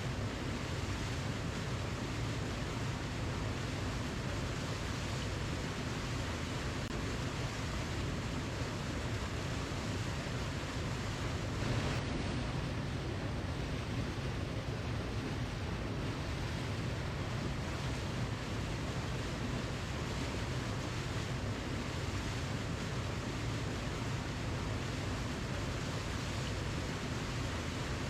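Waterfall: a steady, unbroken rush of falling water, heaviest in the low end, with a small swell about twelve seconds in.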